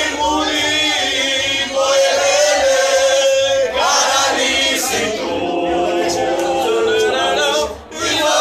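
A group of men and women singing loudly together in chorus, holding long notes, with a short break between lines near the end.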